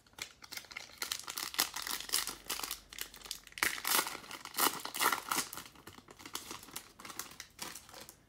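Foil wrapper of a 2019 Panini Prizm football card pack being torn open and crinkled by hand: a dense crackling that is loudest around the middle and dies away near the end.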